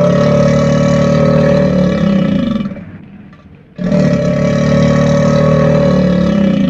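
Two long crocodilian roars, each held steady for about three seconds, with a short gap between them: the first ends about two and a half seconds in and the second starts nearly four seconds in.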